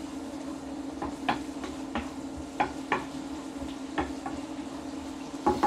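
Wooden spatula stirring diced carrots and onions in a frying pan, with several sharp knocks and scrapes against the pan over a faint sizzle. Under it runs the steady hum of an induction hob.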